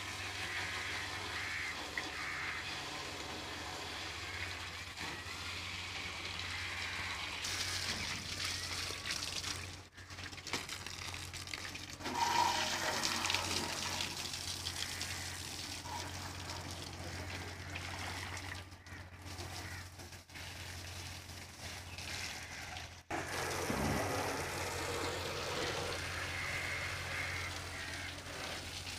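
Water spraying from a hose onto a tractor, splashing off its body and tyres.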